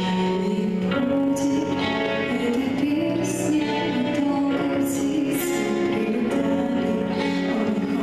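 A girls' vocal trio singing into microphones over a recorded instrumental backing track, with long held notes.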